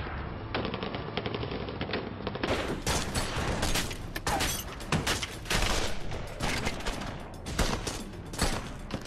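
Sustained automatic rifle fire: rapid strings of closely spaced shots with no break, sharper and fuller from about two and a half seconds in.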